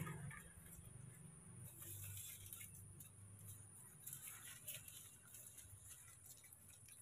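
Near silence, with faint rustling of leaves and thin branches twice, about two seconds and four to five seconds in, as a baby monkey climbs through a small tree.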